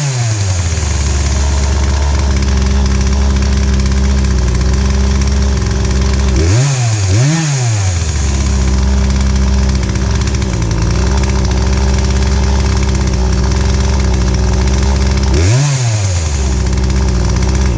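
Poulan Pro PP4218A two-stroke chainsaw engine held at high revs. The throttle is let off and opened again twice about seven seconds in, and once more near the end, after which the engine cuts off. It is a test run after a carburetor rebuild and a throttle-cable fix, showing that the saw now runs and revs.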